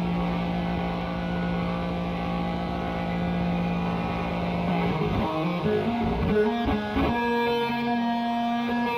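Instrumental pop-rock song intro. A dense held chord sounds first; about five seconds in, the notes slide and shift before settling into a new sustained chord.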